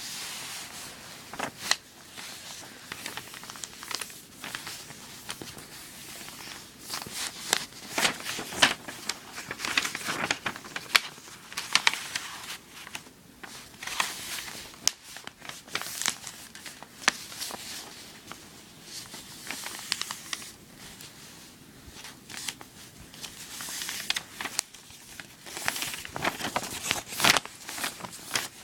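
A sheet of paper rustling and crinkling as it is folded and creased by hand, with irregular sharp crackles throughout.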